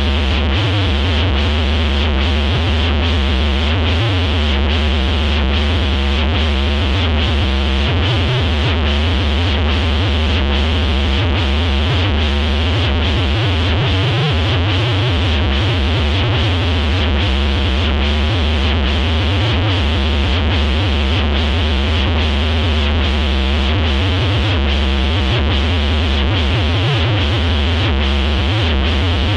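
Looped electronic synthesizer music with heavy, steady bass and a regular pulse a little faster than once a second, unchanging throughout.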